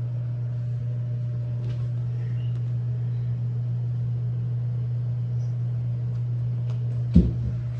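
A steady low hum, with one loud thump about seven seconds in.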